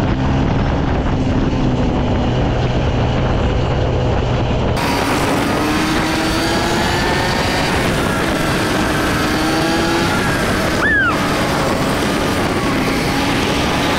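Honda CRF150L's single-cylinder four-stroke engine running on the road, with wind and road noise. Partway through the engine note starts to rise and fall as the bike accelerates and changes gear. A short, high, falling squeak comes about three-quarters of the way through.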